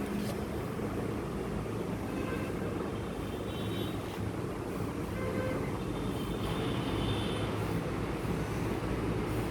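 Steady background road-traffic rumble, with a few faint, short horn toots.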